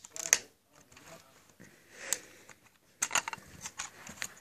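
Lego Hogwarts Express set being handled: plastic Lego pieces giving sharp clicks and clatters, a few single clicks and then a quick run of them about three seconds in.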